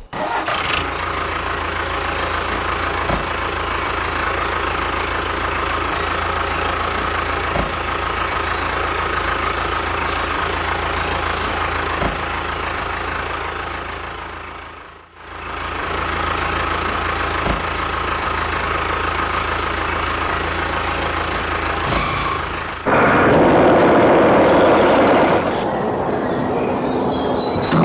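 Steady mechanical hum of a running motor. It dips and fades briefly about halfway through, then gives way to a louder, rougher noise near the end.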